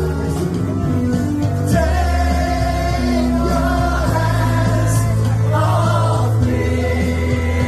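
A live band playing a song: a singer's voice over steady bass notes, with occasional cymbal-like strikes.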